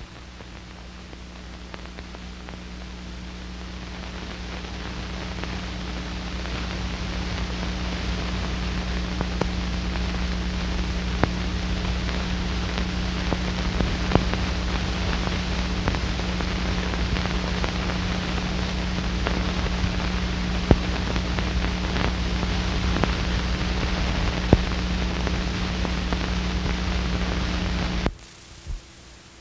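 Steady soundtrack hiss with a low mains hum and scattered crackles and pops, from an old film's audio running on after the narration. It swells over the first few seconds and cuts off abruptly near the end.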